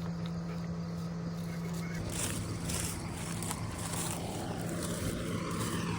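An engine running steadily with a constant low hum. About two seconds in, a rushing noise joins it.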